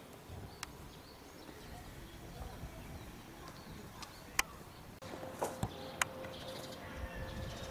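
Quiet outdoor ambience with faint bird chirps and a few sharp clicks. About five seconds in it changes to a steady hum with several sharp knocks from an animal house.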